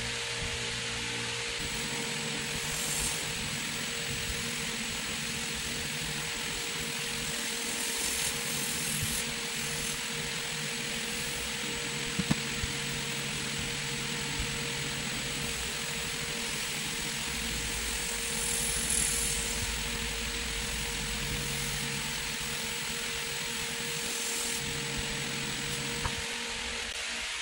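Old cast-iron wood lathe running steadily with a wooden bowl spinning on it: an even motor hum under a hiss, with a few brief louder hisses and two sharp ticks about midway.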